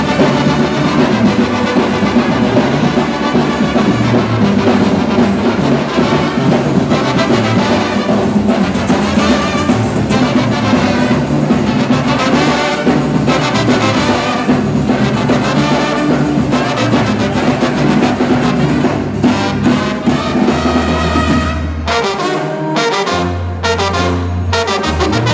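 Brass band music with trumpets and trombones over a bass line. Near the end the sound thins out to separate low bass notes with short gaps between them.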